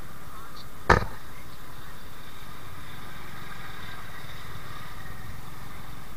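Motorcycle engine running with road noise while riding at low speed, heard from a camera mounted on the bike. One sharp knock comes about a second in.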